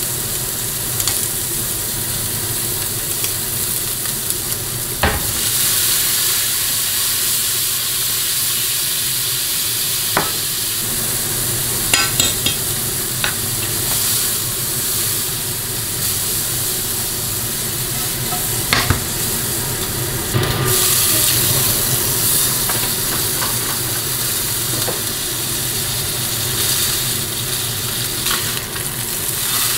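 Shrimp sizzling steadily as they fry in oil in a frying pan, with occasional sharp clicks of metal tongs against the pan as they are turned.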